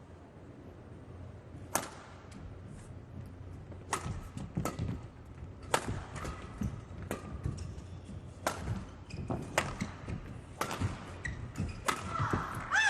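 Badminton rally: rackets striking the shuttlecock in sharp cracks about once a second, with players' footfalls thudding on the court and shoe squeaks near the end.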